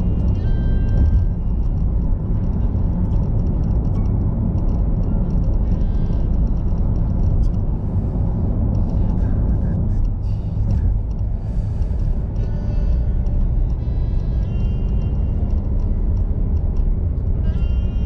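Steady road and engine rumble inside a car cruising on an expressway, with music playing quietly over it.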